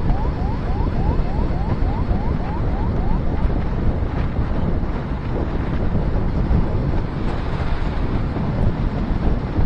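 Wind rushing and buffeting over the microphone of a Suzuki SV650 rider cruising at about 80 km/h. A short rising chirp repeats about three times a second and fades out a few seconds in.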